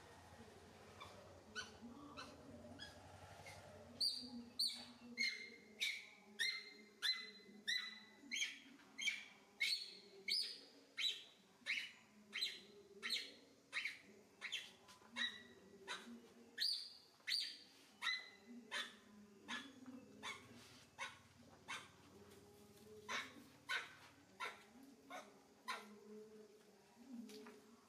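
A young macaque squealing over and over, short high cries about two a second, starting a few seconds in and thinning out near the end.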